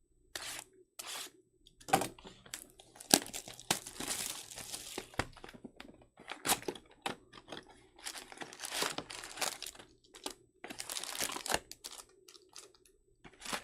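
Plastic wrappers of 2024 Panini Donruss Baseball card packs being torn open and crinkled by hand: a run of irregular short rips and crackles with brief pauses between them.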